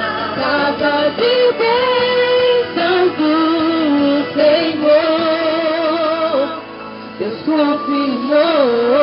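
A woman singing a slow song over instrumental accompaniment, holding long notes with a wavering vibrato, with a brief pause between phrases a little after the middle.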